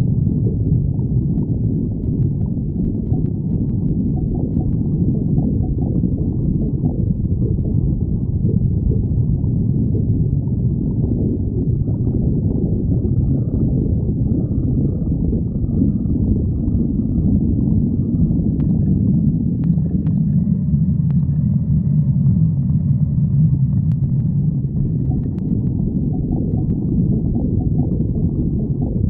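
A person's stomach growling: a low, continuous rumble of digestion with gurgling.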